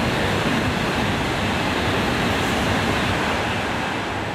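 Tohoku Shinkansen Hayate train passing through the station at speed without stopping: a loud, steady rush of air and wheel noise that begins to fade near the end.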